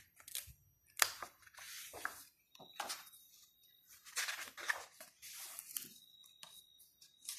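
Pages of a large photo book being turned and smoothed by hand: a few soft paper swishes and rustles, with one sharp tap about a second in.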